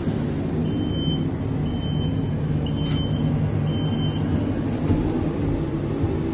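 Steady low rumble of a gondola cabin riding down its cable, heard from inside the cabin. Four short high beeps come about a second apart in the first few seconds.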